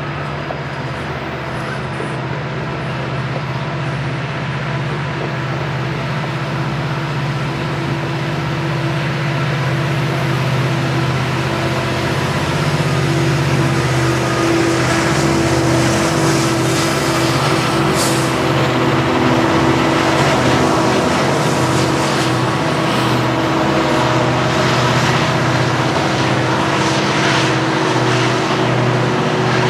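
Rebuilt EMD SD70ACu helper locomotives pushing a loaded coal train upgrade with their diesel engines at full throttle, a steady heavy drone that grows louder as they approach, over the rumble of the loaded coal hoppers rolling past.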